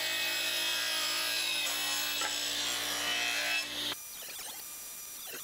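Table saw running as a hardwood board is ripped into a strip: a steady motor whine with the hiss of the blade cutting. About four seconds in the saw sound cuts off abruptly, leaving a fainter, uneven mechanical scraping.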